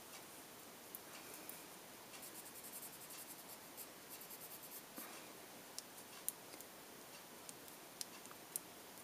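Colored pencil scratching faintly on cardstock in quick, short shading strokes, with fast runs of strokes a couple of seconds in and again around the middle.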